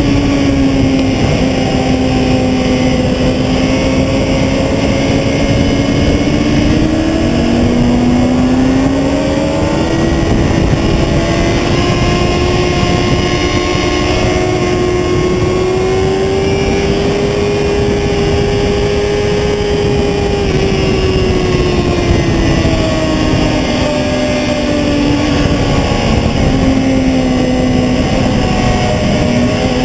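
Sport motorcycle engine running hard at track speed, its pitch dipping, climbing slowly to a peak about two-thirds through, then falling again near the end, under heavy wind rush.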